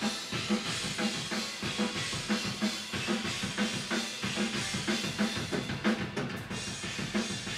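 Acoustic drum kit played through a rock take: a steady kick-and-snare beat, several hits a second, under continuous cymbals.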